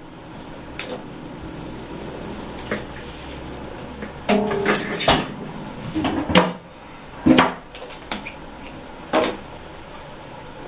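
Cotton fabric being rustled and shifted on a sewing table, with a handful of short knocks and clicks spread through, as the pinned patchwork piece is turned and set in place at the sewing machine.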